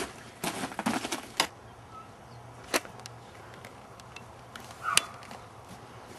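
Hurried footsteps crunching in snow, then two sharp cracks about two seconds apart, the second the louder.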